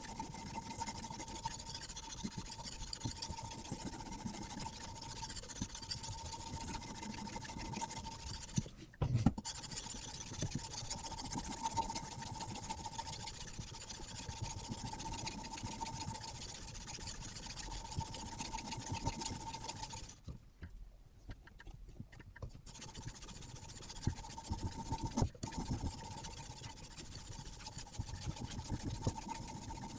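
Sharpening stone of a Hapstone RS guided system stroked back and forth along the carbon-steel blade of a Savage CSH bushcraft knife: a continuous rasping scrape. It stops briefly twice, once about a third of the way in and for about two seconds around two-thirds of the way in.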